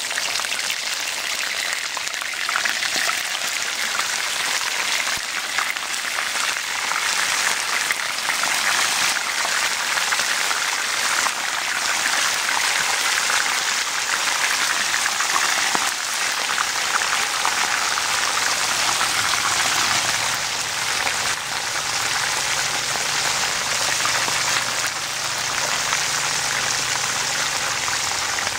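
Seasoned river fish deep-frying in hot cooking oil: a loud, steady sizzle with a fine crackle of spattering oil.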